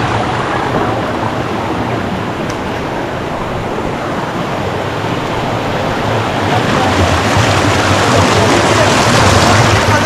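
Rushing water of a mountain stream tumbling over rocks, a loud steady hiss that grows somewhat louder in the later seconds.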